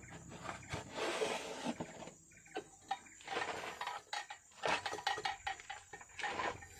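Irregular clicks, knocks and scraping from hand work under the lorry: metal parts and tools being handled as the oil filter is readied for fitting.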